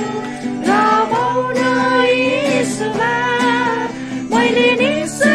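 A man singing a song in long held notes while strumming an acoustic guitar, with short pauses between phrases.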